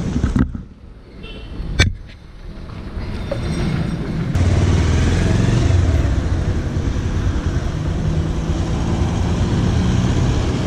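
Bajaj Pulsar 180 motorcycle engine running as the bike pulls away. There is a sharp click about two seconds in, and a little after four seconds the sound steps up to a steady low rumble.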